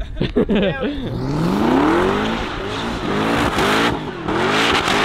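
Ford GT doing donuts: the engine revs hard, its pitch climbing and dropping several times, over a steady hiss of spinning, smoking tyres.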